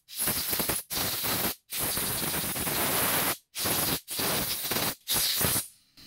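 Compressed-air blow gun blasting air through a small two-stroke carburetor body to clear its passages: about six short bursts of hissing air, each cut off sharply.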